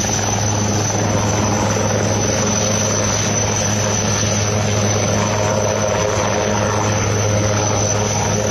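A motor running steadily: a constant low hum under a dense, even rush of noise.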